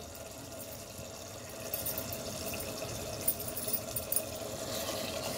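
Thick mutton curry simmering on a low gas flame in an open pressure-cooker pan, bubbling steadily with small pops as it cooks down, nearly done. A wooden spatula stirs through it near the end.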